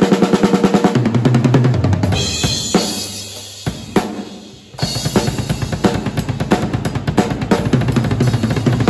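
Acoustic drum kit played fast: rapid triplet-based licks and fills across snare, toms and bass drum, with hi-hat and Paiste cymbals ringing. The playing lets up briefly a little over four seconds in, then picks up again.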